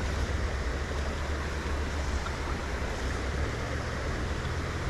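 River water flowing steadily, an even rushing noise with a low rumble underneath.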